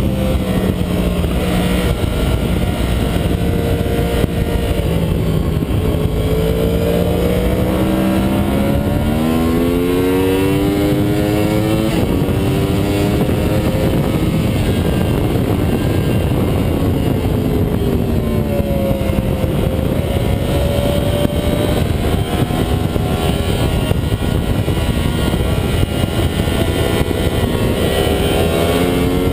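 Onboard sound of a 2009 Yamaha R1's crossplane inline-four engine being ridden hard: the engine note falls as it slows for corners and climbs again as it accelerates out, several times over, under steady wind rush.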